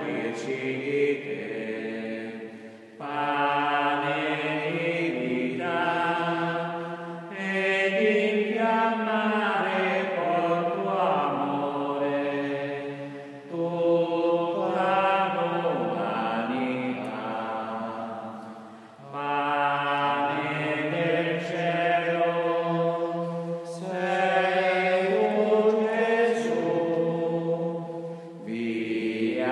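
Slow sacred choral chant: several voices singing long held notes in phrases of several seconds, with short breaks between phrases.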